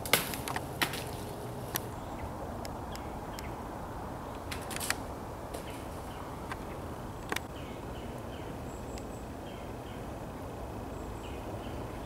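Dry leaf litter and twigs crackling and snapping underfoot: a few sharp, irregular snaps, the loudest right at the start, over a steady outdoor background hiss.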